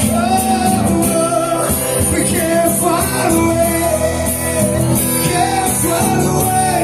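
Live song: acoustic guitar strumming under a voice singing a melody without words.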